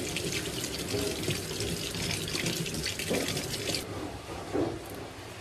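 Kitchen tap running, the stream splashing over a lychee held in the hand and into a stainless steel sink; the water cuts off abruptly about four seconds in.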